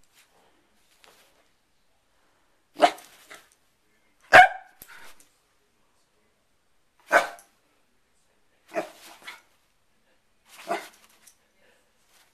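Corgi barking in single sharp barks, about five of them spaced roughly two seconds apart, the one at about 9 seconds followed by a smaller yelp. The dog is barking at its owner's hair clip being opened and closed.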